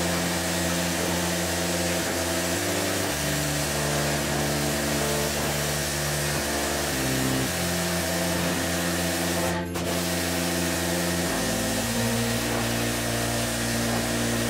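Pressure washer spraying water onto a car's dusty paint, a steady hiss, under background music with slow chord changes.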